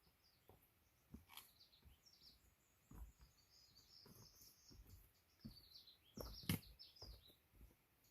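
Faint birdsong: a songbird's quick chirping phrases, with a few soft knocks, the loudest near the end.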